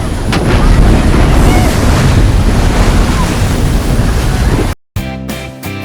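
Loud steady rushing roar of the waterfall and its spray, with wind buffeting the microphone. It cuts off abruptly near the end and strummed guitar music begins.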